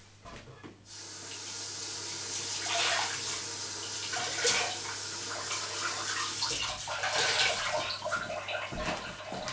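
Water running, starting suddenly about a second in and then going on steadily.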